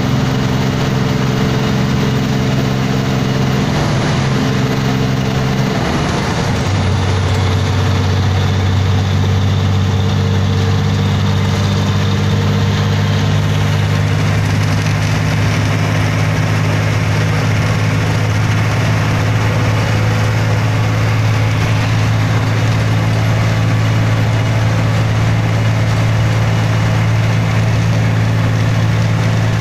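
Heavy vehicle's engine running steadily with a low, even note; the note changes about six to seven seconds in, then holds steady.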